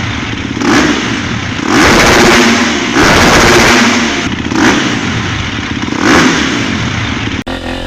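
Dirt-bike engine revving hard in repeated surges, its pitch climbing and dropping with each burst of throttle. The sound cuts off abruptly near the end.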